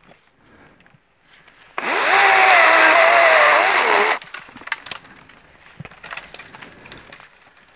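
DeWalt battery-powered chainsaw cutting through a bush honeysuckle stem for about two and a half seconds, its motor whine wavering and dropping in pitch as the chain bites. Scattered light cracks and rustles of branches follow.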